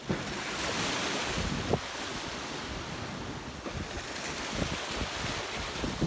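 Small sea waves washing over shallow sandy water at the shoreline, the wash swelling louder in the first couple of seconds and then easing. Wind buffets the microphone in uneven gusts.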